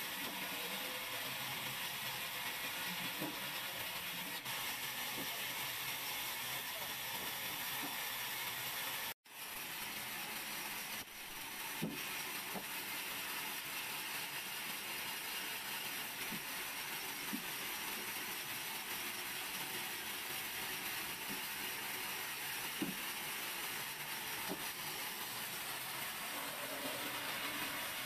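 Large vertical band saw running and cutting lengthwise through timber planks: a steady, even whirring hiss, with a few faint knocks of wood being handled. The sound drops out for a moment about nine seconds in.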